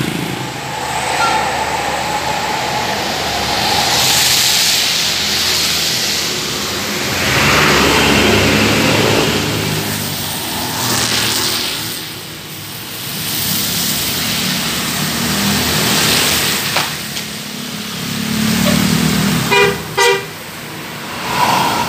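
Buses and traffic running along a street. Near the end a bus sounds its basuri musical horn as it passes: a quick run of pulsing multi-tone notes, then another short blast.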